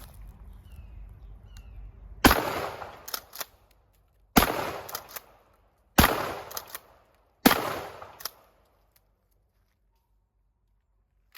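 Four shots from a Remington 870 Express Magnum 20-gauge pump shotgun, about one and a half to two seconds apart, each ringing out briefly and followed by smaller clacks of the pump action being worked. A single sharp click near the end.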